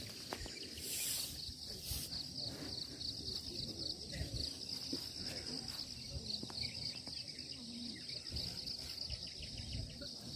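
Night insects trilling in a steady, high-pitched chorus that does not let up.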